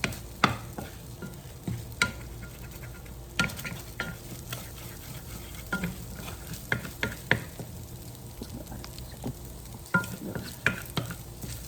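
Fried rice sizzling in a hot pan as it is stirred, with irregular knocks and scrapes of the spatula against the pan, some ringing briefly.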